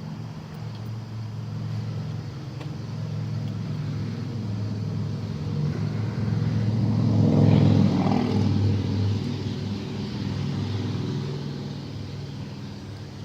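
A motor vehicle going by: a low engine hum that grows louder to a peak a little past halfway, then fades away.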